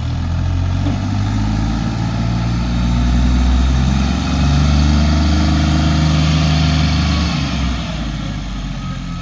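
Large diesel engine of a heavy vehicle running close by, its pitch shifting up and down. It fades off near the end.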